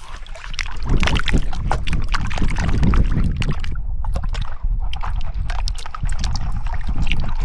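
Water sloshing with many small stones clicking and rattling, and wind rumbling on the microphone.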